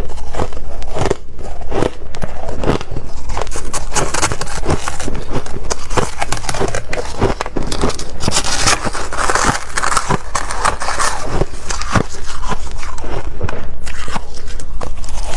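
Close-miked biting and chewing of freezer frost: a dense run of crisp crunches, several a second.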